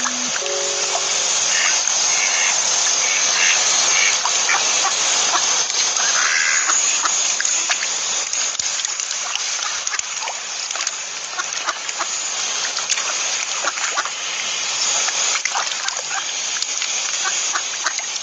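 Steady splashing and trickling of water, full of small clicks and drips, with a few short calls in the first few seconds.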